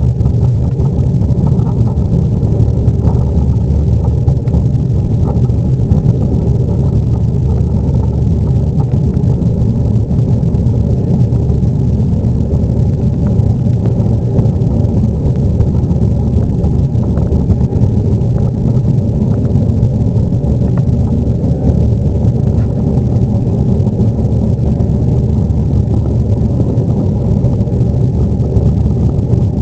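Boeing 737-800's CFM56-7B jet engines and airflow heard from inside the cabin during takeoff: a loud, steady, deep rumble that holds unchanged.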